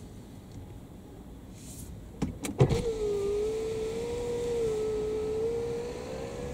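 Christ Aquatus Prime car wash gantry: a few clunks about two seconds in, then its electric motor starts and whines steadily at a slightly wavering pitch, as the gantry moves on its rails. The whine cuts off suddenly near the end.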